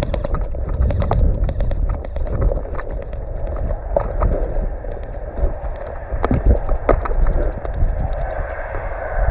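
Airsoft guns firing: runs of sharp clicking shots, densest at the start and again near the end. Under them, a low rumble of rustling and handling noise as the wearer moves through dry grass.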